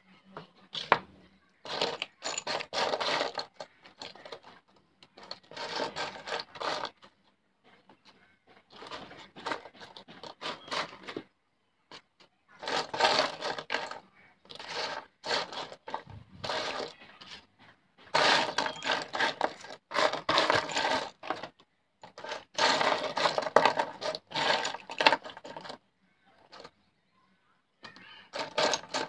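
A pile of plastic and metal sewing buttons clicking and clattering against each other as a hand stirs through it, in bursts of a second or two with short pauses between.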